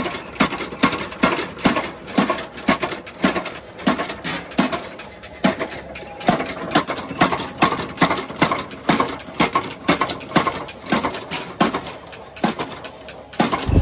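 Belt-driven mechanical power hammer striking a plough blade in fast, even blows, about three a second, each a sharp metal-on-metal impact.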